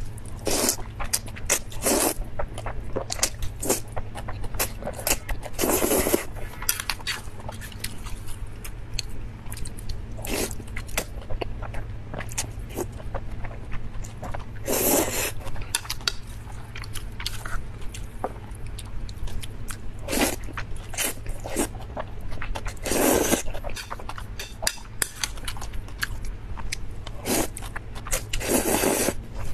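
Close-miked eating of mipi rice-skin noodles in sesame sauce: wet chewing and mouth clicks throughout, with louder slurps every few seconds. A steady low hum runs underneath.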